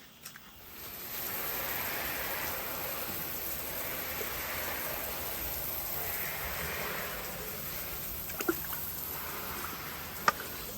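A steady rush of water that swells and eases every couple of seconds, with a sharp click near the end.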